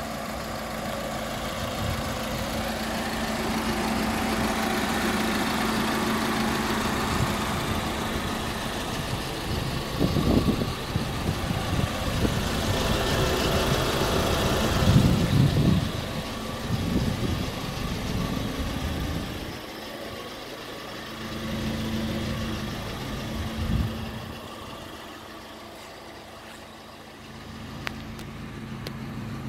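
Ford Transit van's diesel engine idling steadily, its hum fading and returning. Occasional low thumps come in around ten and fifteen seconds.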